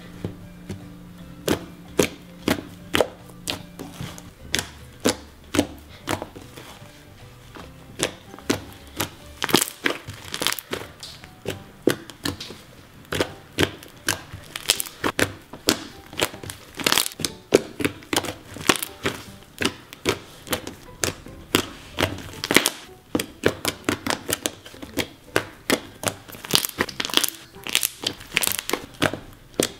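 Thick green slime being kneaded and squeezed by hand, with irregular sharp pops and crackles, several a second, as air pockets in the slime burst.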